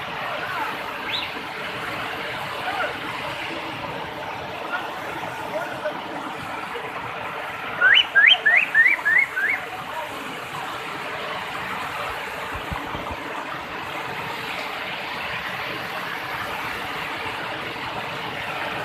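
Steady rush of a large waterfall. About eight seconds in, a quick series of six rising chirps cuts through it, each a little lower than the one before.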